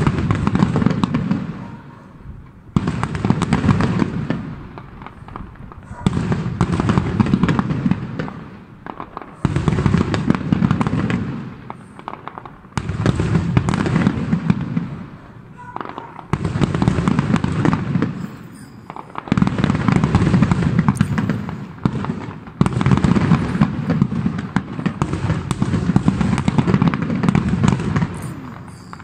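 Aerial fireworks display: a loud shell burst about every three seconds, each followed by a crackle and low rumble that dies away before the next.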